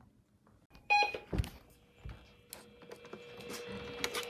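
Weather radio receiver between announcements: a short electronic beep about a second in, then a faint steady low hum and hiss that slowly grows louder.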